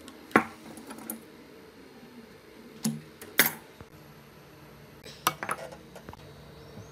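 A handful of sharp metallic clinks and knocks as sheet-metal fan parts are handled and set down on a wooden workbench, the loudest about half a second in.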